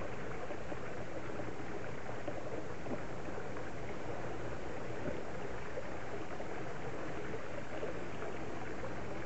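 Steady rushing background noise, even in level throughout, with no distinct sounds standing out from it.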